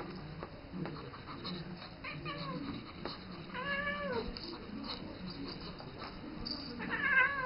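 Siamese cat meowing three times while wrestling with a ferret: short calls about two seconds in, a longer arched meow near the middle, and the loudest one near the end, with faint scuffling and clicks between them.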